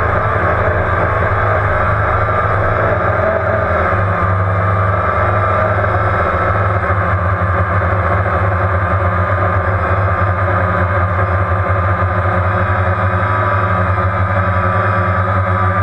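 Quadcopter drone's four electric motors and propellers running steadily in flight, heard from the camera mounted on the drone: a constant buzz with a high whine whose pitch wavers slightly.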